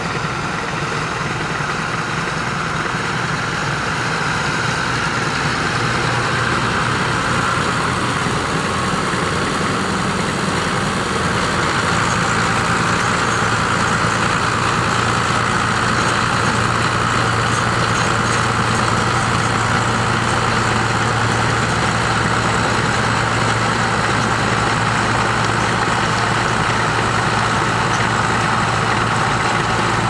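New Holland 7840 tractor's diesel engine running steadily under load as it drives a rear-mounted rotavator through the soil, getting a little louder about ten seconds in.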